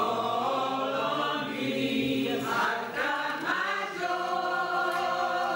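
Church choir singing, moving through a few notes and then holding a long chord from about four seconds in.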